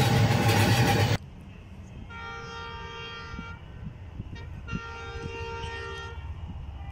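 A passing passenger train's coaches clatter loudly until the sound cuts off abruptly about a second in. Then a diesel locomotive's horn gives two long, steady blasts of about a second and a half each, with a short pause between them.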